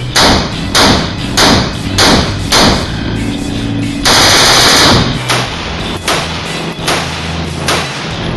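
A 5.56 Bushmaster carbine with an 11.5-inch barrel and a Griffin M4SD II compensator fires five quick single shots, then a full-auto burst of about a second. Background music with a steady beat runs underneath.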